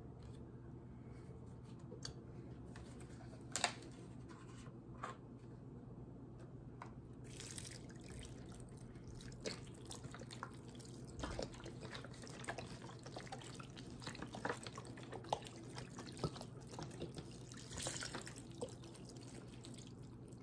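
Chicken broth pouring from a cardboard carton onto torn bread in a mixing bowl, splashing and dripping. A few scattered light clicks come first, and the pouring sets in about seven seconds in.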